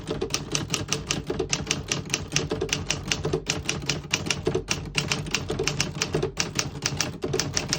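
Typing a sentence on a 1954 Remington Quiet-Riter manual portable typewriter: a steady run of typebar strikes against the platen, about five or six keystrokes a second. The keys are working cleanly, with none skipping or sticking.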